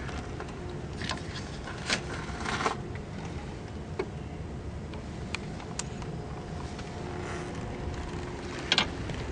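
Low, steady background rumble with scattered light clicks and scrapes, a few of them sharper about two seconds in and near the end.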